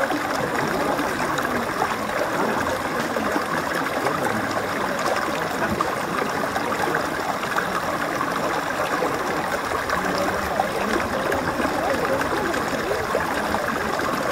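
Small, shallow rocky stream running and splashing over stones: a steady, even rush of water.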